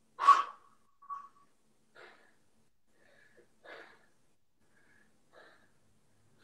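A man breathing hard from the exertion of handstand push-ups: one sharp, loud exhale just after the start, then four fainter short breaths spread over the next few seconds.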